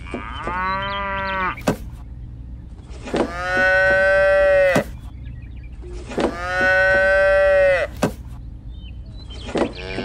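Cows mooing: four long, drawn-out moos about three seconds apart, the last beginning near the end, with a short click after most of them.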